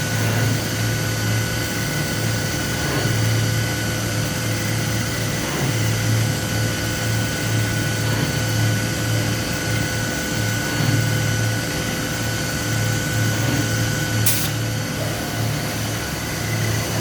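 Masterwood Speedy 207 wood CNC machining centre running: a steady mechanical hum with a wavering low drone and constant higher tones. One short hiss near the end.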